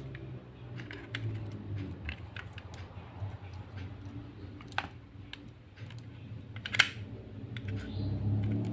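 Scattered small clicks and taps of a laptop drive and its mounting being handled and fitted into the drive bay, with one sharper click near the end, over a low steady hum.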